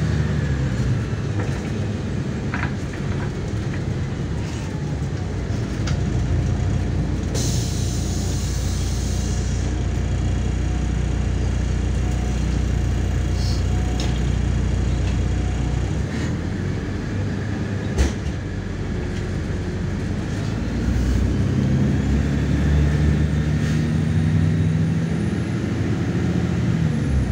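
Cabin of a MAZ 103 city bus underway: steady engine drone and road rumble, the engine note climbing over the last several seconds as the bus accelerates. A short hiss comes about seven seconds in, and a single click just past the middle.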